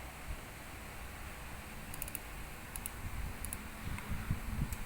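Scattered light clicks of a computer keyboard in use, over a steady low hum, with a few dull low thumps in the last two seconds.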